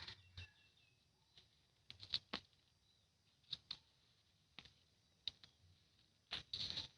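Faint, irregular scrapes and clicks of digging in soil and handling sweet potato tubers, with a longer scrape near the end.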